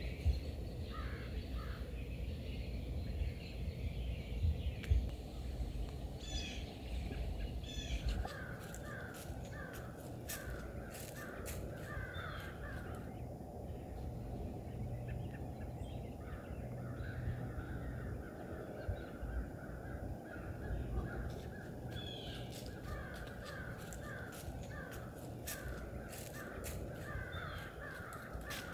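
Birds calling, in runs of short, quickly repeated caw-like calls, with a few higher calls and some scattered sharp clicks over a low, steady rumble.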